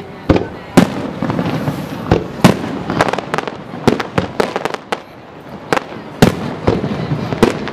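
Fireworks display bursting overhead: a rapid, irregular series of sharp bangs, about a dozen, with crackling filling the gaps between them.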